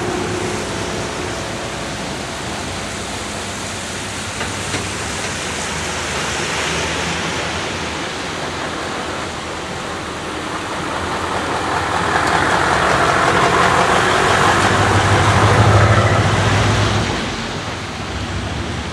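Heavy tractor-trailer's diesel engine and tyres passing: a steady rumble and road hiss that swells from about halfway through, is loudest shortly before the end, then falls away.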